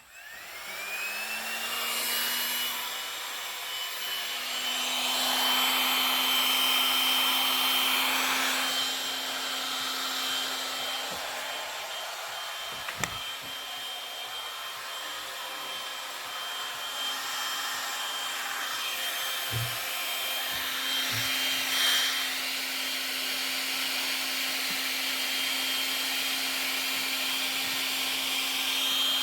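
Small electric hand-held blower switching on and spinning up, then running steadily with a high whine and a low hum, its air rush swelling and fading as it is swept over wet resin to push it into waves. A click near the middle and a few soft knocks later on.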